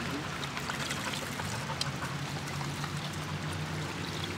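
Water running from a foot-pedal dog fountain into its metal bowl as a dog laps from it.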